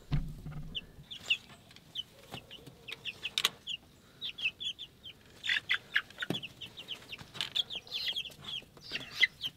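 Young chickens peeping: a rapid run of short, high cheeps. A few sharp knocks sound in between, and there is a low thud at the very start.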